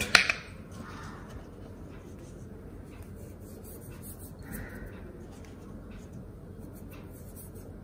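Quiet handling sounds of salt being shaken from a glass jar into a bowl of beaten curds, with a few light ticks over low room noise.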